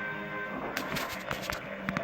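Background music from a television, with a steady hum underneath and a series of sharp clicks and taps starting about a second in.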